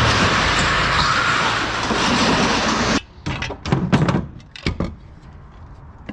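Loud steady rushing noise that cuts off abruptly about three seconds in, followed by scattered knocks and clanks.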